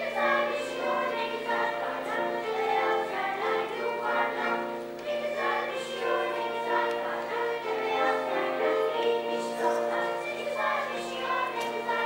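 Children's choir singing, with long held notes.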